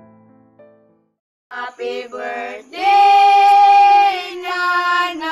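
Soft piano music fading out, a moment of silence, then a high solo voice starting a slow Visayan birthday song to a mother, holding one long note in the middle.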